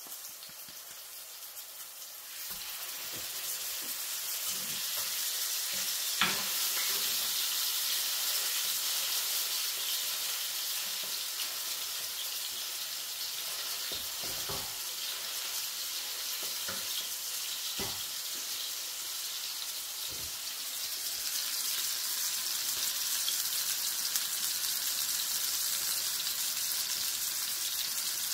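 Minced-lamb kebab patties sizzling in hot oil in a frying pan, a steady hiss that gets louder about two seconds in as a second patty goes into the pan. A few sharp knocks of a metal utensil against the pan cut through it, the loudest about six seconds in.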